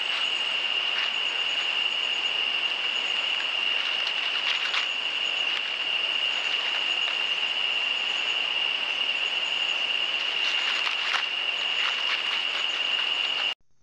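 Night insect chorus in rainforest: a steady, unbroken high-pitched trill from crickets or katydids over a haze of other insect noise, with a few faint clicks. It cuts off suddenly near the end.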